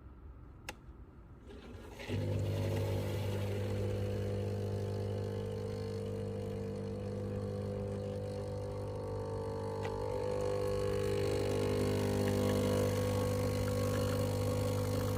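Breville Barista Pro's vibratory pump starting abruptly about two seconds in and buzzing steadily as it pulls an espresso shot, getting a little louder later on. A faint click comes just before it starts.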